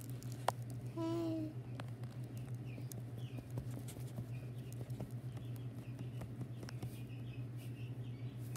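Faint, repeated high peeping of baby chicks, many short chirps from a couple of seconds in, over a steady low machine hum and a few light taps.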